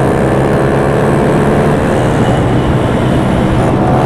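Honda CG 125's single-cylinder four-stroke engine pulling hard in gear, its pitch slowly climbing, with wind rushing over the microphone.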